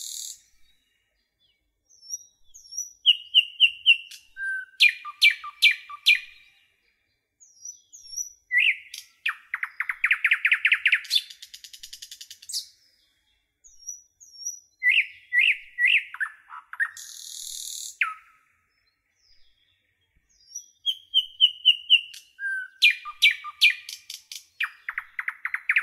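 Birds chirping and calling in phrases of quick chirps, trills and whistles, with clean silences between them. There is a brief high hiss about seventeen seconds in, and the same sequence of calls repeats about eighteen seconds later, as from a looped bird-sound track.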